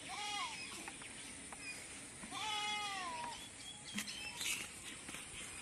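A goat bleating twice: a short call right at the start and a longer, wavering call about two and a half seconds in.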